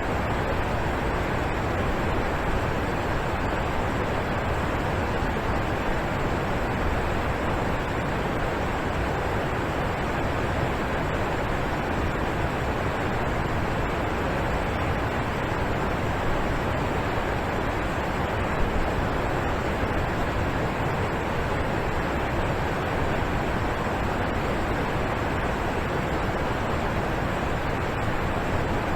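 Alpine waterfall crashing down steadily, an unbroken rushing roar of falling water.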